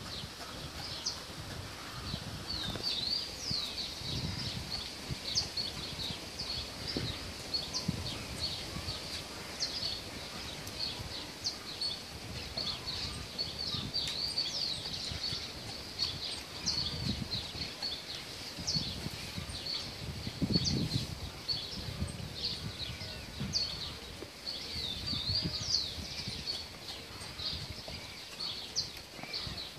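Many small birds chirping continuously in short rising and falling calls, with occasional low rumbling bursts underneath.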